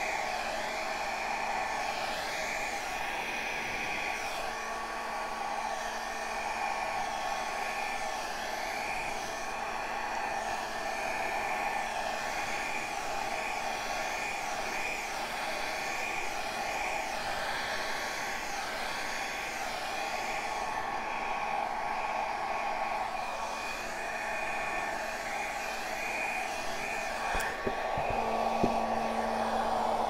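Handheld hair dryer running steadily, its air blown at close range onto wet acrylic pour paint on a canvas. A few light knocks near the end.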